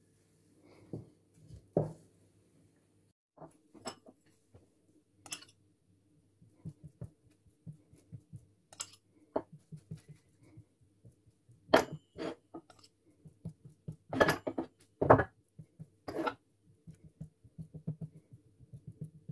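Hand-work sounds of dough being rolled with a wooden rolling pin on a silicone pastry mat and then buttered with a knife from a ceramic bowl: scattered soft taps, scrapes and clicks, with a few louder knocks a little past the middle. A faint steady hum runs underneath.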